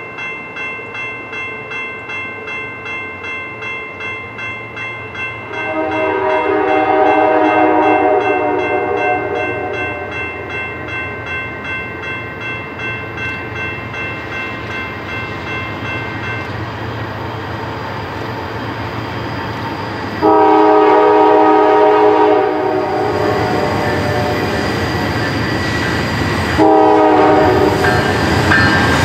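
Approaching Norfolk Southern GE freight locomotive: its bell rings about twice a second while the air horn sounds two long blasts and then a short one. The train's rumble grows louder as it nears.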